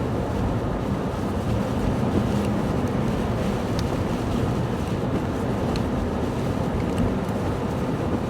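Strong blizzard wind rushing over the microphone, with a steady low rumble of heavy-duty snow plow engines underneath.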